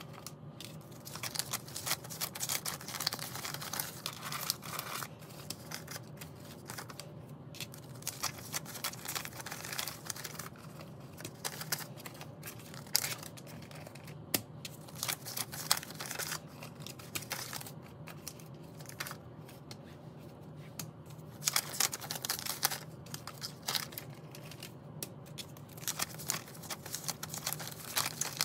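Paper banknotes being unfolded, flattened and sorted by hand: dense, irregular crinkling and crisp snaps of US dollar bills.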